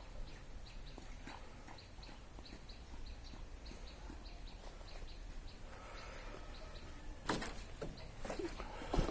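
Small bird chirping over and over, short high notes two or three times a second, over a low steady background hum. Two brief louder noisy sounds come near the end.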